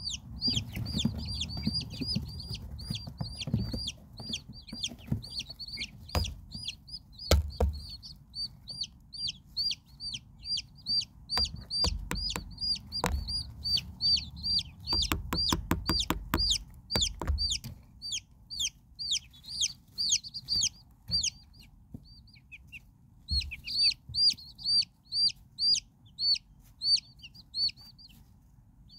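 Silkie chicks peeping steadily, a quick series of high chirps that each fall in pitch, about three or four a second, with a short pause near the end. Sharp taps come now and then, with a fast run of them about halfway through.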